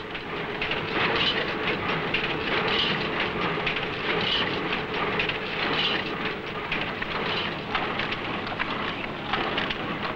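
Bookbinding machine clattering steadily as it glues gauze to the spines of books, with a regular beat about every second and a half over a steady hum.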